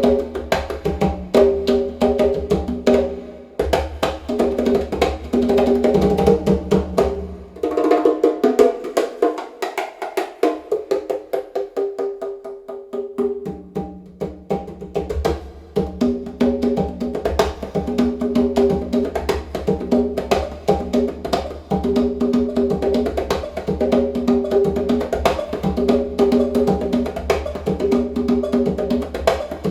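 Percussion music track played through a home speaker system of Heil ESS AMT-1 speakers with stacked midwoofers and REL S/812 subwoofers: quick, steady percussion strikes over deep bass. The bass drops out about eight seconds in and comes back some five seconds later.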